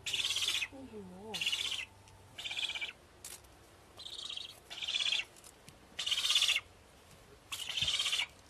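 Young hermit ibises calling: a series of about seven harsh, rasping calls, each about half a second long, spaced roughly a second apart.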